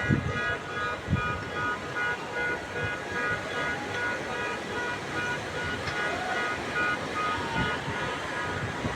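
Heavy rain and street traffic, with a repeating pulsed electronic tone sounding over them and a few low thumps of wind on the microphone.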